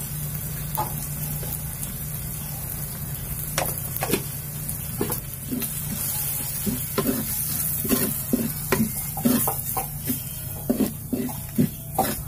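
Onion, tomato and freshly added chilli and turmeric powder sizzling in hot oil in a pot. A steel spoon stirs and scrapes against the pot in quick strokes, coming thick and fast from about halfway on.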